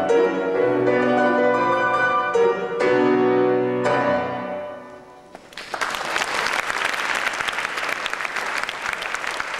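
Petrof grand piano playing the closing chords of a classical piece, the last chord ringing out and fading. About five and a half seconds in, an audience breaks into steady applause.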